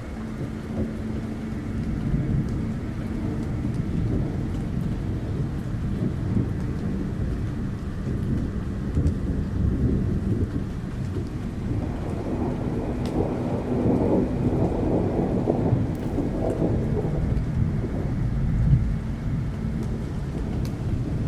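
Dark ambience of deep, rolling thunder rumble over a wash of rain, with a faint steady low hum beneath. The rumble swells louder and fuller about halfway through, then settles back.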